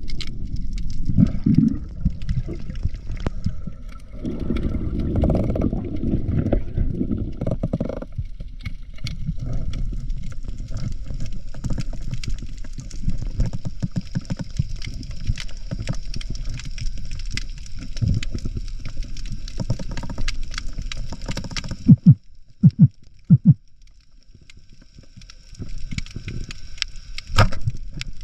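Underwater sound of a swimmer moving through the water: a low rumble of water movement with many small clicks and crackles. About two-thirds of the way through come three sharp, loud knocks close together, after which it goes quieter.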